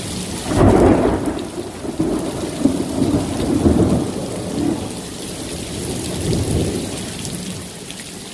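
Thunder: a loud clap about half a second in, then rolling rumbles that die away after about four seconds, over steady rain.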